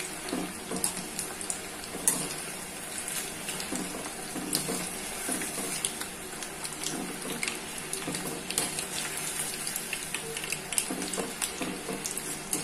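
Battered needlefish pieces deep-frying in hot oil: a steady sizzle with many small crackles, the fish cooking until crisp.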